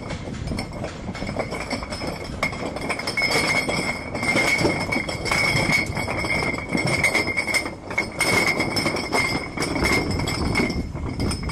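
Heavy stud-link anchor chain clanking link against link as it is hoisted up off a pile, a dense run of metal knocks and clinks. A steady high whine comes in about two seconds in and runs under it.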